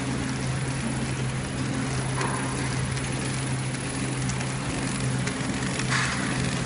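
Small horizontal flow pack wrapping machine running: a steady motor hum under an even mechanical whirr.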